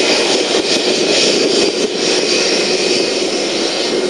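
Twin-engine jet airliner's engines running at taxi power as it moves into position for takeoff: a loud, steady jet rush and whine.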